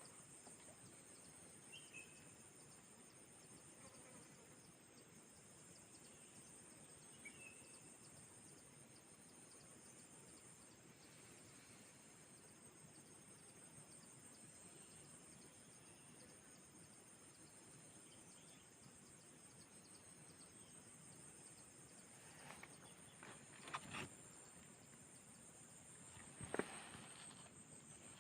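Faint outdoor ambience: a steady high-pitched insect trill, with a few faint bird chirps and several soft clicks and knocks near the end.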